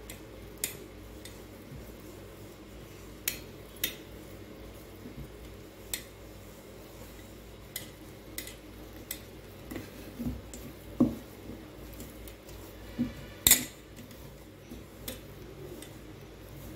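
Wooden stirrer knocking and scraping against a stainless steel bowl while rice flour and jaggery syrup are stirred into a dough. Irregular clinks and knocks, the loudest about three-quarters of the way through.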